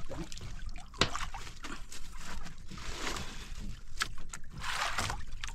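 Water sloshing and splashing against a small fishing boat, with a sharp knock about a second in.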